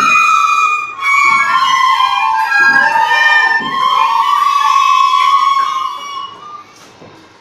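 Recorder playing a slow melody in clear, sustained notes, stopping about six seconds in.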